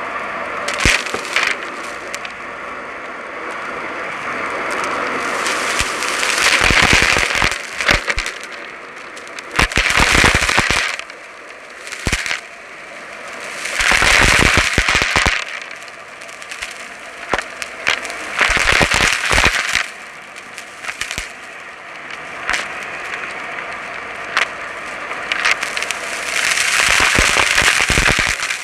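Dyson Light Ball upright vacuum cleaner running steadily while sucking up crunchy debris, which rattles and crackles through the machine in loud bursts of a second or two, about six times.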